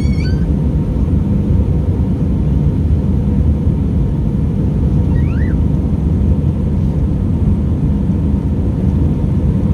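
Cabin noise inside an Airbus A319 climbing after takeoff: its engines and the airflow over the fuselage make a steady, even low rush of noise.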